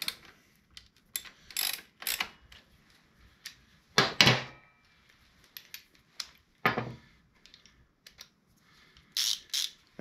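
Hand tools at work on a motorcycle's rear brake torque-strut nut: short metallic clicks and clanks as a wrench snugs the nut and tools are handled. One louder, briefly ringing clank comes about four seconds in.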